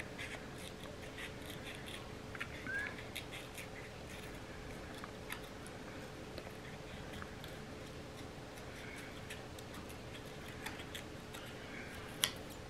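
Scissors snipping through paper, a scattering of faint, irregular cuts with a sharper click near the end, over a faint steady hum.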